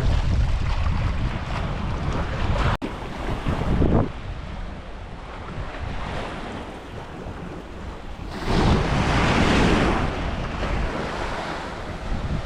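Sea waves washing onto a beach, with wind buffeting the microphone. One wave surges loudest about eight seconds in.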